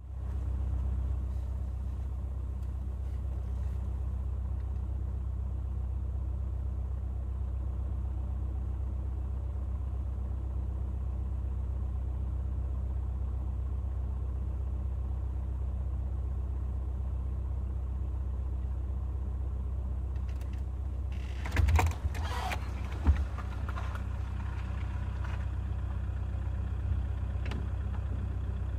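Vehicle engine idling steadily, with a few brief knocks and rattles about three-quarters of the way through.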